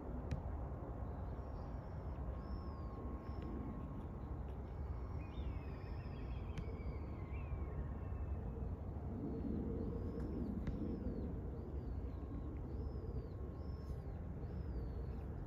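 Birds calling, with runs of short, high, arched chirps and a few falling whistles, over a steady low rumble.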